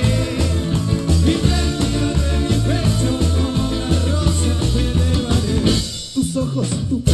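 Live cuarteto band playing, with a bouncing bass line, drums, keyboard and brass under male singing. About six seconds in the upper instruments drop out for about a second, leaving the low parts, before the full band comes back.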